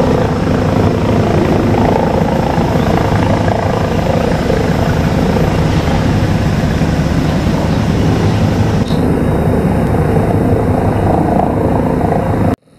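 Helicopter circling overhead, its rotor beating in a steady low rumble that cuts off suddenly just before the end.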